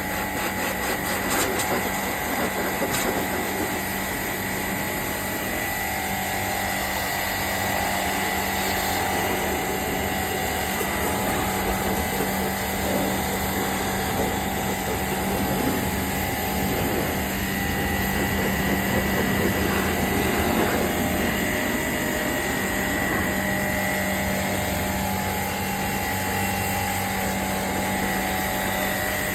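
A machine running steadily, with a constant low hum and a high whine over a dense noise.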